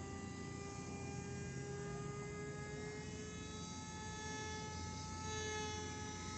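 Engine and propeller of a homebuilt light aircraft running steadily, one droning tone with its overtones, the pitch drifting slightly and rising a little about five seconds in.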